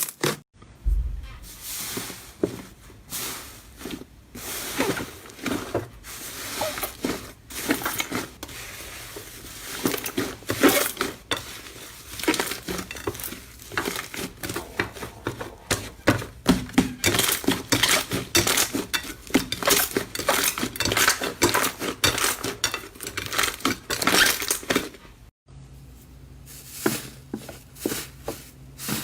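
Slime being squeezed and worked by hand, giving dense runs of quick crackles and pops, broken by brief silent gaps about half a second in and again near the end.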